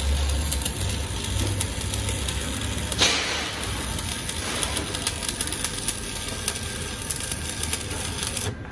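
A power tool working the steel of a truck chassis frame: a steady, crackling noise with a brief louder surge about three seconds in, cutting off sharply near the end.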